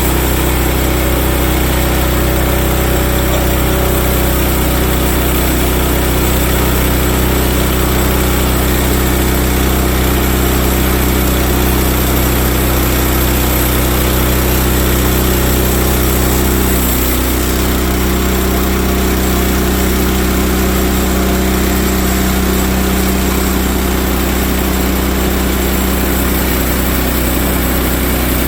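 Small gasoline engine of a portable band sawmill running steadily. Its tone shifts slightly about 17 seconds in.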